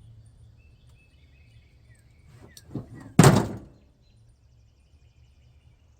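Hand-pumped hydraulic crimping tool working a lug onto a heavy-gauge wire: a few faint clicks, then a single loud thunk about three seconds in.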